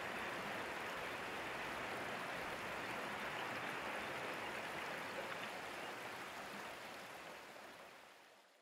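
Steady rushing noise like flowing water, fading out over the last few seconds.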